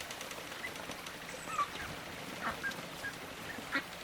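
Domestic ducks and chickens calling, with about half a dozen short calls scattered through, one of the clearer ones near the end.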